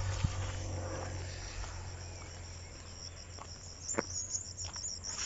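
Steady high-pitched insect chirping from the grass, with a few light knocks. The sharpest knock comes about four seconds in.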